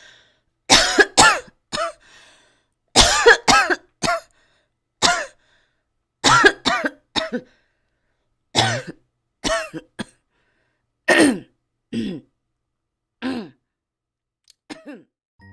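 A young woman coughing over and over in a put-on coughing fit: short throaty coughs that drop in pitch, coming singly or in twos and threes about a second apart, and growing fainter near the end.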